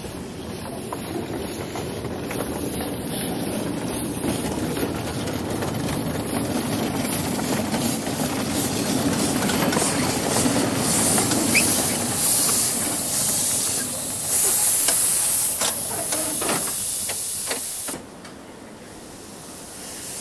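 Small live-steam locomotive hissing steam as its train of cars rolls along the track. The hiss builds, is loudest in the middle and later part, and drops away suddenly near the end, with a few sharp clicks just before.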